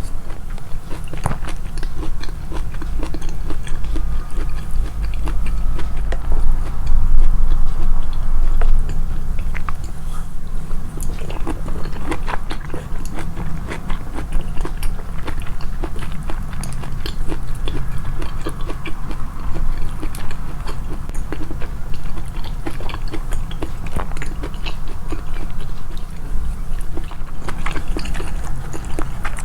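Close-miked chewing and biting of food, with many small crackling clicks over a low rumble.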